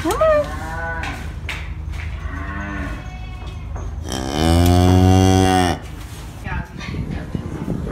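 Black-and-white horned cow mooing close up. A couple of short, weaker calls come in the first three seconds, then one long, loud, deep moo from about four to nearly six seconds in.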